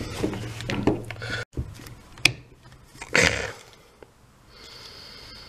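Handling noises from a disassembled cordless impact driver's plastic housing and motor parts as they are pulled apart: irregular knocks and rustles, a sharp click a little after two seconds and a longer scrape about three seconds in, then a faint steady hiss.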